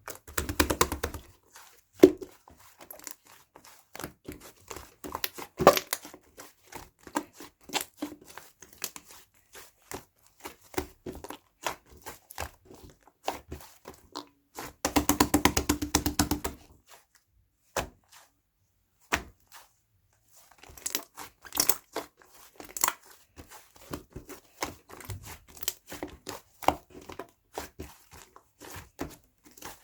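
Irregular crinkling, clicking and light knocking, like something being handled close by, with two denser, louder runs of rapid clicks: one about a second in and one about halfway through.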